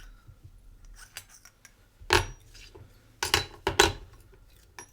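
Small metal lock-picking tools clinking and clicking as they are handled. There are a few sharp clicks, the loudest about two seconds in and a pair around three and a half seconds.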